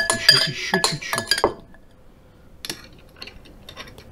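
Metal spoons clinking against glass, a quick run of ringing clinks through the first second and a half, then a few lighter clicks near the end.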